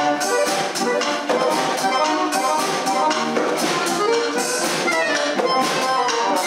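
Piano accordion playing a melody of quick, short notes, with drums and cymbals keeping time behind it.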